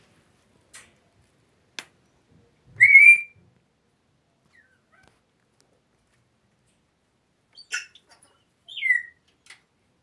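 African grey parrots whistling: one short, loud whistle about three seconds in that rises slightly, and another near the end that slides down in pitch. A few sharp clicks fall between them.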